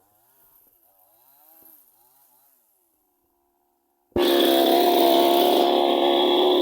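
Near silence for about four seconds, then a chainsaw engine running loud and steady, cutting in suddenly.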